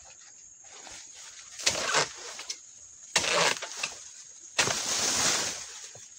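Oil palm dodos (chisel blade on a long pole) being driven into the palm's fibrous frond bases to cut the fronds: three harsh scraping, rustling strokes, the last the longest.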